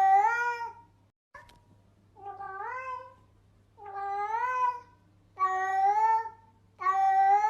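A meow sound effect played over and over, the same rising-then-falling meow about five times, roughly every one and a half seconds. One near the middle is quieter. A short click falls a little over a second in.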